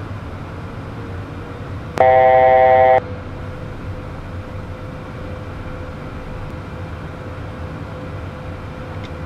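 Steady cabin noise of a Beechcraft Premier 1A business jet in descent, with a loud electronic cockpit alert tone that sounds for about one second about two seconds in.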